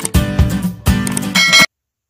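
Intro jingle music with strummed guitar-like chords, cutting off abruptly near the end.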